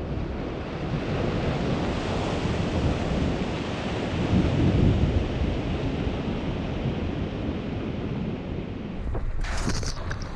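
Mercedes G350 SUV driving through deep muddy puddles: a steady rush of tyres churning water and mud, loudest about halfway. Near the end, sharper spatter as mud sprays up close against the vehicle's side.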